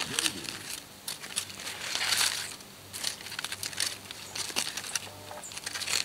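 Aluminium foil crinkling and rustling in irregular bursts as a charred, campfire-baked foil packet is pulled open by hand and with a fork, loudest about two seconds in.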